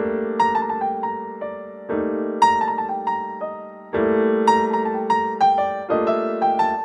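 Background piano music: a slow melody of single struck notes over held chords that change about every two seconds.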